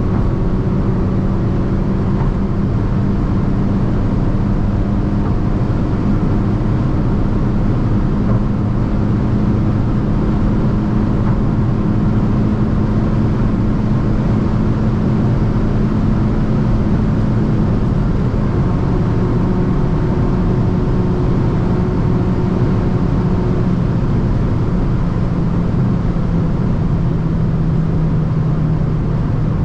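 Hyundai i20 N's 1.6-litre turbocharged four-cylinder engine droning steadily at motorway cruising speed over heavy tyre and road noise. Its note drops slightly about eighteen seconds in.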